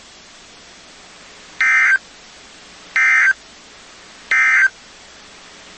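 Emergency Alert System end-of-message signal on NOAA Weather Radio: three short, identical bursts of buzzy two-tone digital data, about a second and a half apart, over steady receiver hiss. It is the data code that marks the end of the broadcast alert.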